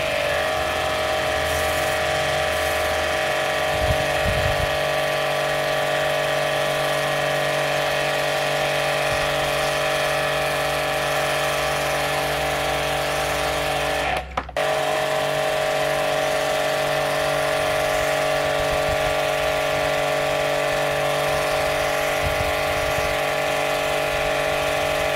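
StarQ W3 1800-watt portable high-pressure washer running steadily with a constant motor whine, its water jet spraying a wall. The sound cuts out briefly about halfway through, then picks up again unchanged.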